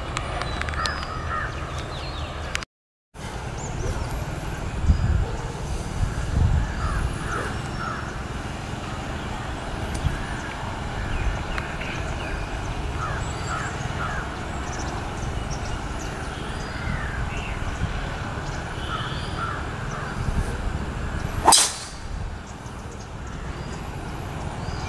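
A golf driver strikes a ball off the tee with one sharp crack about 21 seconds in. Birds chirp and call throughout over a steady low rumble.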